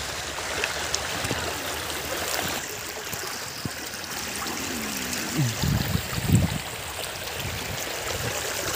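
Shallow floodwater swishing and trickling around a bicycle wheel as the bike is pushed through it, with a few dull bumps around the middle.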